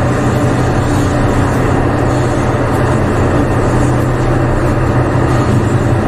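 Steady, loud machinery drone inside a container ship's steel hold, a low hum that never breaks.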